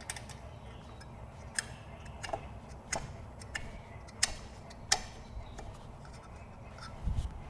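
Light, irregular clicks and taps of hand tools and small metal parts while nuts are being fitted onto a small-engine air-filter plate, about eight in all, with a duller thump near the end.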